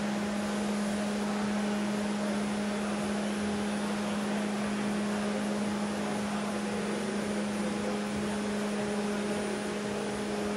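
Steady mechanical hum: a constant low drone with an even hiss over it, unchanging throughout.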